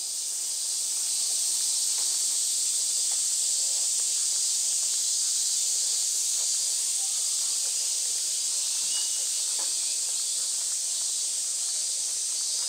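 Dense, steady high-pitched hiss of a summer cicada chorus.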